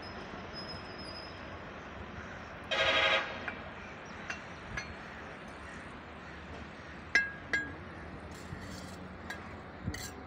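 A bricklayer's trowel clinking against bricks a handful of times, the sharpest two strikes with a brief metallic ring about seven seconds in. A short horn honk sounds once about three seconds in.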